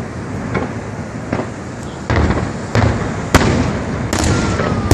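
Fireworks display: a run of aerial shell bursts, about one bang every half second to a second, each followed by a low rumble, with a faint whistle sliding down in pitch near the end.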